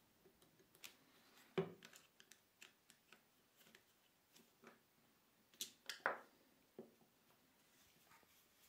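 Faint clicks and taps of a screwdriver and a small steel fly-cutter fixture being handled on a wooden tabletop as the side locking screws are worked. The sounds are scattered over near silence, with a few taps close together about six seconds in being the loudest.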